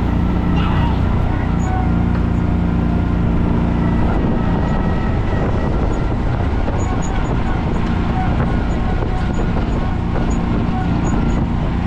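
Kawasaki Mule 3010's V-twin engine running as the side-by-side drives along. A steady engine drone gives way about four seconds in to rougher, noisier running.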